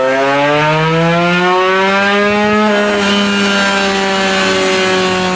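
Tuned 140cc two-stroke motorcycle engine with a Creampie racing exhaust, run hard on a chassis dyno: the revs climb steadily in one gear until nearly three seconds in, then the throttle eases and the revs slowly fall away.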